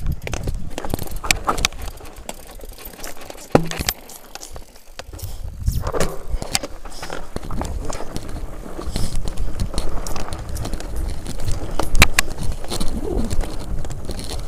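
Mountain bike rattling and thudding down a rocky trail, with wind rumbling on the microphone and sharp knocks from the wheels striking rocks, the loudest about three and a half seconds in and again near the end.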